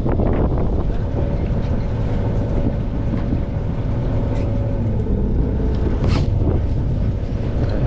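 A fishing boat's engine running with a steady low rumble, and a brief sharp click about six seconds in.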